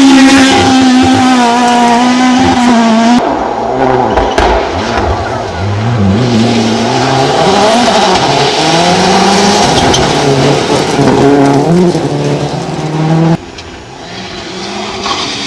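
Rally cars at speed on a gravel stage. First, a car passes close with its engine held at a steady high note. Then a second car approaches with its engine rising and falling through gear changes and lifts, before a sudden switch to a quieter, more distant engine near the end.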